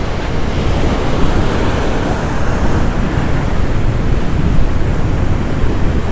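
Strong wind buffeting the microphone, with ocean surf washing behind it: a steady, loud rush heaviest in the low rumble.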